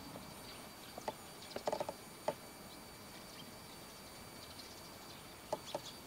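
Domestic fowl giving a few short calls, about a second in, just before and after two seconds, and twice near the end, over a faint steady outdoor background.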